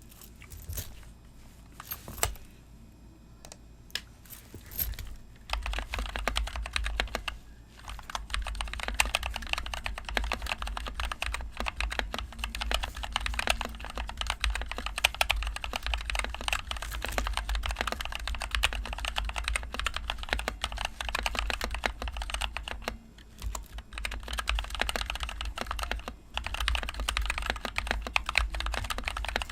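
NovelKeys NK65 Entry Edition mechanical keyboard with stock NovelKeys Cream switches being typed on: a few separate keystrokes at first, then steady fast typing from about five seconds in, with two short pauses near the end.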